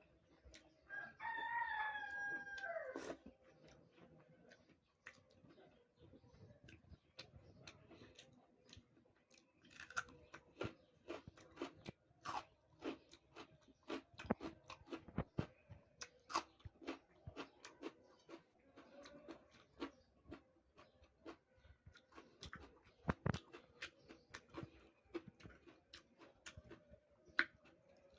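A person chewing and crunching puri with chana dal sabji close to the microphone: many short, sharp crunching clicks. About a second in, a rooster crows once for about two seconds, the call falling at its end.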